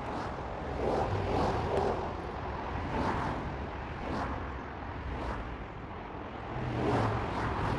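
Road traffic: cars passing by one after another, each swelling and fading, with the loudest passes about a second in and near the end.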